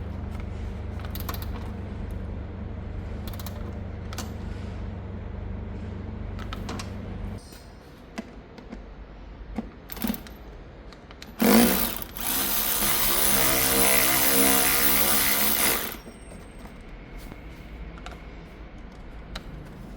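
Parkside PAR 4 A1 4 V cordless ratchet's motor whirring steadily and stopping a little after seven seconds. After a few clicks and knocks, it runs again more loudly for about four seconds.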